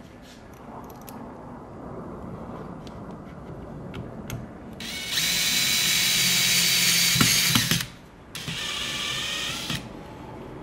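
DeWalt cordless drill/driver running in two bursts while driving screws into a steering wheel assembly: a loud run of about three seconds starting about five seconds in, then after a brief pause a second run of about a second and a half. Light clicks of small parts being handled come before the first run.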